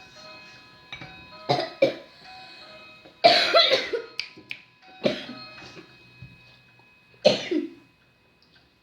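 A sick person coughing about five times in irregular bursts, the loudest and longest about three seconds in, over faint background music.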